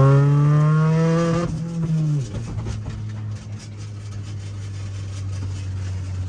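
A car engine accelerating, its pitch rising steadily, then falling away about two seconds in, leaving a steady low hum.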